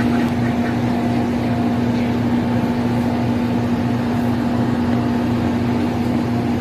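A steady mechanical hum with one strong constant low tone, running without a break.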